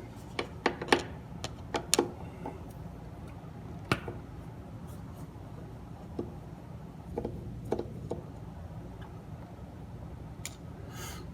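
Scattered light clicks and taps of small tools and parts being handled on a turntable, several in quick succession at first and then a few spaced out, over a steady low hum.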